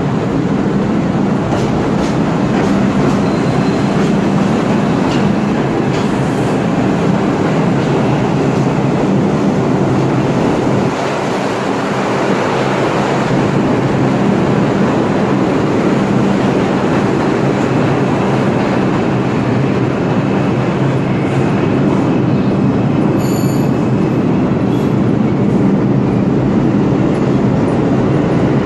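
New York City subway trains running on the tracks in an underground station: a loud, steady din of steel wheels on rail, with a few brief high wheel squeals.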